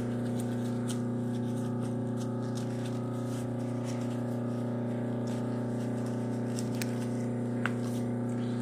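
Steady low electrical hum with a few faint clicks of hands working a sneaker upper, two of them near the end.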